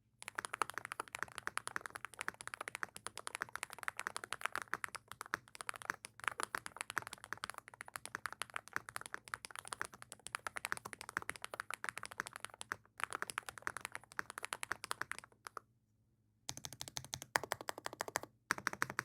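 Typing on an Epomaker G84 HE hall-effect keyboard with magnetic switches: a quick, steady run of key clicks. The typing stops for about a second and then starts again near the end.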